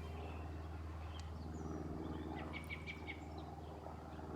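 A bird chirping: a quick run of about five short, repeated high notes about two and a half seconds in, over a steady low hum.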